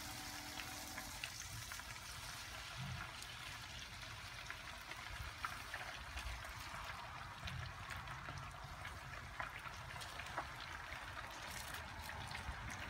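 Breaded tilapia pieces sizzling and crackling in a pot of hot oil as they fry.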